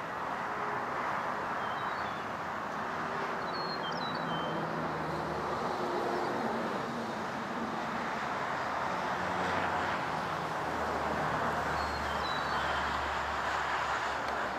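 Steady rural outdoor ambience, a constant even hiss-like rush with a faint low hum underneath, and a few brief high bird chirps about four seconds in and again near the end.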